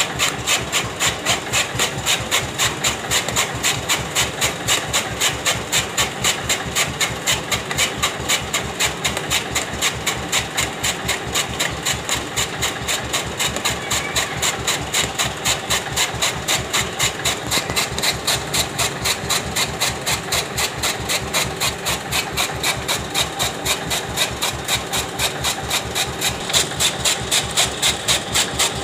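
A tractor-driven chaff cutter chopping green fodder, its flywheel blades slicing in an even rhythm of about three to four strokes a second, with the tractor engine running underneath.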